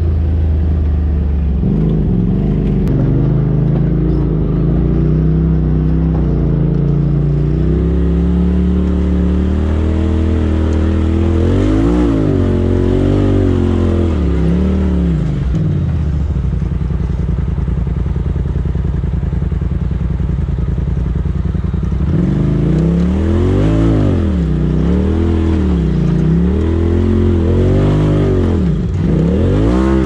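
Polaris RZR side-by-side engine heard from inside the cab, running steadily at first. In the second half it revs up and down over and over, about once a second, as the throttle is worked.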